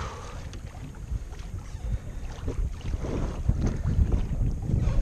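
Wind buffeting the microphone, a low rumble that grows louder about halfway through, over small waves lapping against a kayak's hull at sea.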